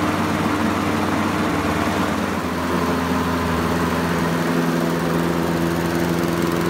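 Briggs & Stratton single-cylinder overhead-valve four-stroke engine of a Hayter Ranger 53 rotary lawnmower running steadily. It is being run to burn off the fuel left in the carburettor before storage.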